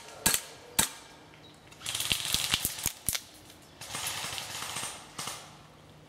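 Airsoft guns firing: two sharp single shots in the first second, then bursts of rapid automatic fire near the middle and again around four seconds in, with a couple more single snaps near the end.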